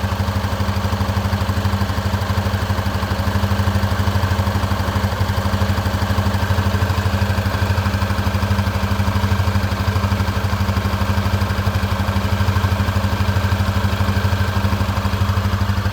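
Honda CB300F Twister's single-cylinder engine idling steadily, with a metallic rattle like something loose knocking, which the owner cannot identify and hears more clearly when the engine is hot.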